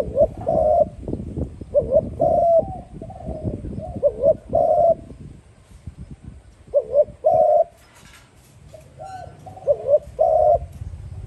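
Spotted dove cooing: several phrases of short coo notes, with a pause of about a second and a half after the middle, then two more phrases.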